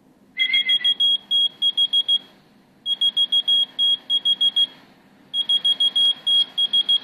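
Whistle-activated key-finder keychain beeping in answer to a whistle: three bursts of rapid, high-pitched beeps, each about two seconds long, starting about half a second, three seconds and five and a half seconds in.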